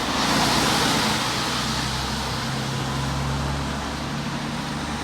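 Road traffic: a vehicle passing with tyre noise that swells about half a second in and then slowly fades, over a low steady engine hum.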